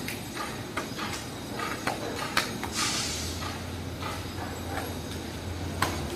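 An arnis stick swishing through the air in a run of strikes, with short taps and scuffs of shoes on a tiled floor. A low steady hum comes in about three seconds in.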